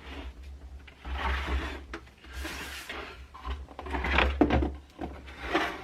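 Plastic casing of a Hysure portable dehumidifier being handled: several sliding and rubbing noises with knocks, the loudest about four seconds in.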